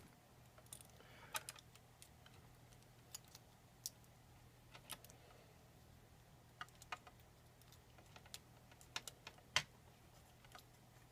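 Faint, irregular small clicks and taps of metal tools against lock parts while a picked lock is being taken apart, with quiet gaps between them.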